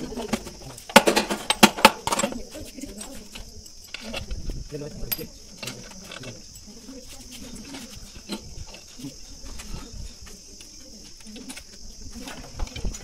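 Metal hand tools and parts clinking against a power tiller's gearbox housing during assembly, with a quick run of sharp clanks about a second in and scattered lighter clicks after.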